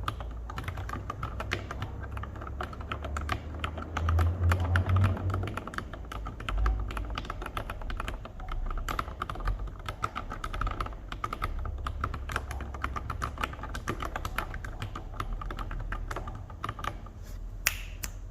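Steady typing on a mechanical keyboard with lubed Cherry MX Black Retool linear switches under tall SA-profile keycaps: a dense, continuous run of keystrokes, with one louder strike near the end.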